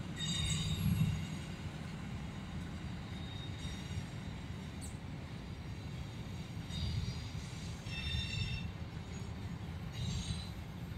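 EMD GP38 diesel locomotive hauling a string of hopper cars at low speed: a steady low rumble, with the wheels squealing high-pitched on the rails four times, at the start, twice in the second half, and near the end.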